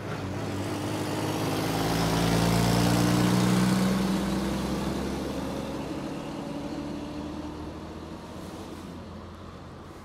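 Large truck's diesel engine driving past, growing louder to its loudest about three seconds in, then fading away.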